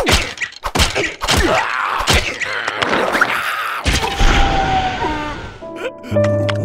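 Cartoon slapstick scuffle: a rapid run of whacks and thumps mixed with wavering, squealing character cries, then one heavy low thud about four seconds in. Music with held notes comes in near the end.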